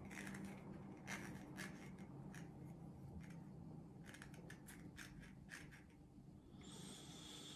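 Faint scattered clicks and rubbing of hard plastic as a small toy doll and its cap are handled and pushed together by hand, over a low steady hum. A short soft hiss comes near the end.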